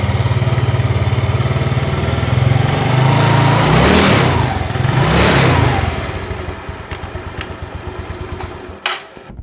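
Yamaha Mio Sporty scooter's engine and CVT idling, then revved twice, each rev rising and falling back within about a second. After the revs it drops to a much quieter level, with a couple of sharp clicks near the end. No clicking comes from the CVT, whose loose, worn front pulley roller housing and roller boss have been dealt with.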